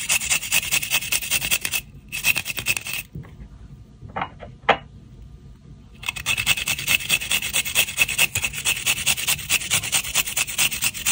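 Garlic cloves grated on a metal hand grater in quick, even strokes. The grating stops for about three seconds in the middle, with two light clinks, then starts again.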